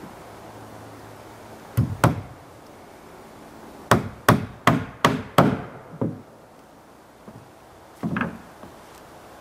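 Hammer blows on wood: two strikes, then a quick run of five strikes at about three a second, then a few more scattered hits near the end.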